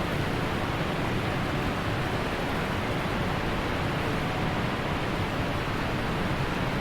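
Steady rushing of a stepped waterfall on a mountain stream.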